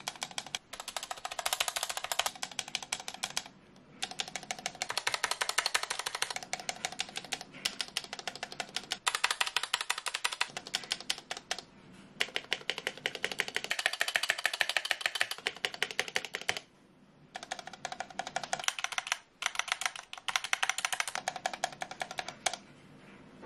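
Stabilized keys of a Gamakay K61 mechanical keyboard (spacebar, shifts, enter, backspace) pressed and released rapidly, in runs of fast clacking broken by a few short pauses. The stabilizers have had their legs clipped, are lubed with Krytox 205G0 and sit on a band-aid mod, to stop their rattle.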